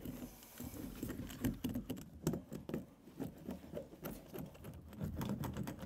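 A hand roller pressed and rolled over foil-faced rubber-and-aluminium Dynamat damping sheet on a car door's inner sheet metal, making irregular crinkling, scraping and clicking noises as the mat is mashed into the contours to push out air bubbles.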